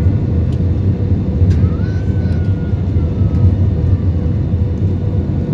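Steady low rumble of a jet airliner heard from inside the cabin, with a constant hum running through it and a faint whine drifting slightly downward in the middle.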